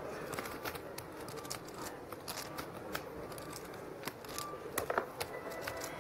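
Poker chips clicking and clacking as they are handled at the table, in quick irregular runs of clicks, with a louder cluster about five seconds in.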